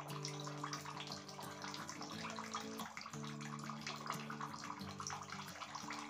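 Small homemade tabletop wall-waterfall fountain running: water falls from its spout and splashes continuously into the basin below, a soft, steady splashing.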